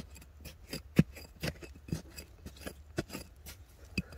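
Irregular sharp clicks and knocks, a few a second, as stones and soil are dug through and scraped by hand in a small pit.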